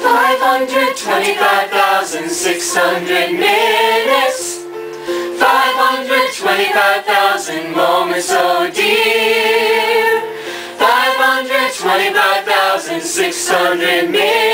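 A small group of mixed men's and women's voices singing a song together in harmony, in phrases with short breaks for breath.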